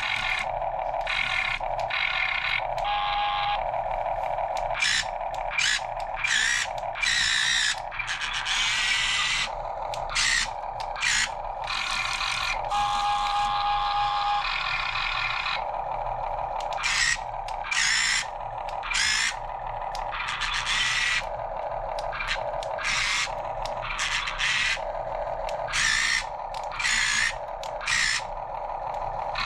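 Small electric motors and gearboxes of a 1:16 scale radio-control Cat 272D skid steer whining in many short bursts of under a second, start-stop, over a steady hum.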